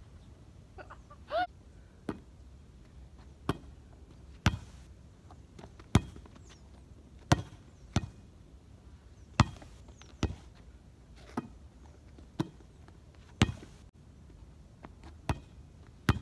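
A volleyball being passed back and forth between two players: about a dozen sharp slaps of hands and forearms on the ball, one every second or so, some louder than others.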